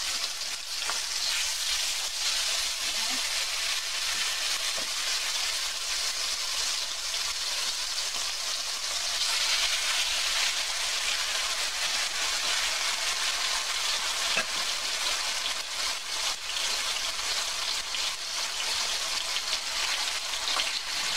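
Marinated chicken thighs sizzling steadily as they fry in hot peanut oil in a wok, with a few light knocks as the pieces are placed and pressed with a wooden spatula.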